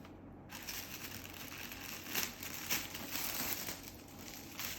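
Paper wrapping crinkling and rustling as it is handled and unfolded, with a few sharper crackles in the middle and near the end.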